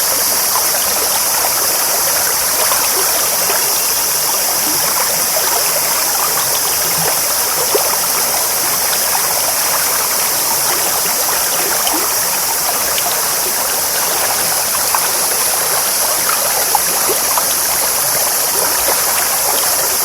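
Clear, shallow stream babbling and trickling over stones: a steady rush of water with many small splashes and gurgles.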